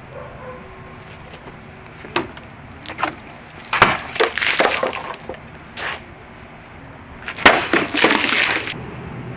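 Katana blade cutting through water-filled plastic jugs twice, about four seconds in and again near the end. Each cut is a sharp whack followed by a second or so of splashing, spraying water, with a few lighter knocks before the first.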